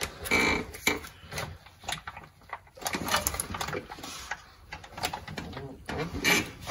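Plastic quart bottle of 75W-140 synthetic gear oil being squeezed, oil and air squirting out through its cut nozzle into the rear differential fill hole in irregular bursts.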